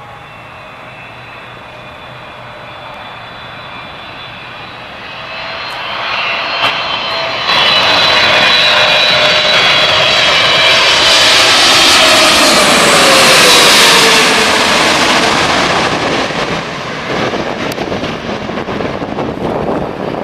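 Boeing 777-300ER's twin GE90 turbofans on final approach: a jet whine that grows steadily louder as the airliner comes in, peaks as it passes low overhead about thirteen seconds in with its hum dropping in pitch, then fades as it descends away toward the runway.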